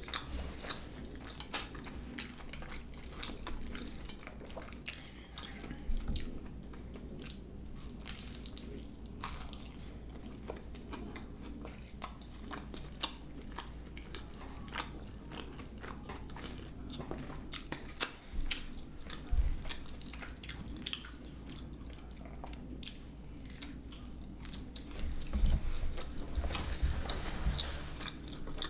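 A person chewing and crunching fried food close to the microphone, with many short crisp crackles and mouth clicks, busier and louder near the end.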